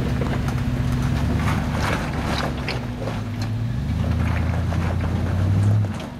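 Lifted pickup truck's engine working under load as it crawls up a steep rock ledge, with scattered cracks and crunches of rock under the off-road tyres. The engine note strengthens from about four seconds in, swells, then drops off sharply just before the end.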